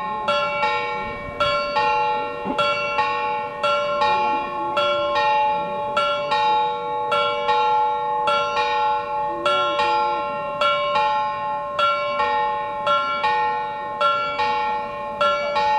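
The bells of the Frauenkirche's Männleinlaufen mechanical clock chiming during the clock's performance. Several bells are struck one after another in an even, repeating sequence, a little more than one stroke a second, and each note rings on into the next.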